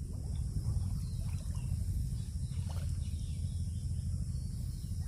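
Steady low rumble of wind buffeting the microphone, with faint splashes of water as hands and a net move through shallow water.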